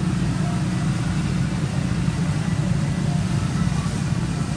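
A steady low engine rumble, running evenly without change.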